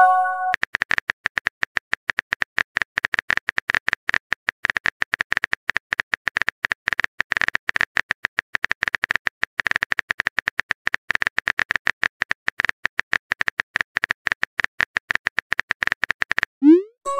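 Chat-app sound effects: a short message chime, then a long run of rapid, even keyboard-typing clicks. Near the end a rising swoosh and another chime sound as the next message pops up.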